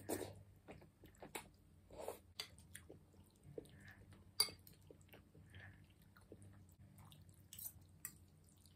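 Close-up chewing of noodles with small wet mouth clicks, and one sharp clink of a metal fork on a glass bowl about four and a half seconds in.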